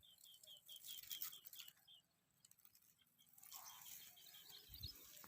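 Faint bird calls: a quick run of short chirps, about four or five a second, which stops for a moment and starts again about three and a half seconds in, the later notes rising in pitch.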